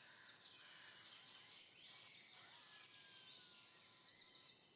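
Near silence, with faint high chirps and quick trills from a small bird.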